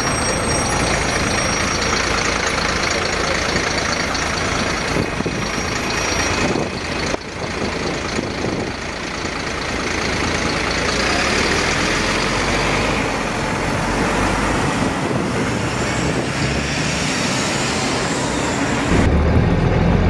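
Volvo B7RLE single-deck bus standing with its engine running, giving off a thin, high screeching over the steady running noise. Near the end it gives way to a louder, lower rumble.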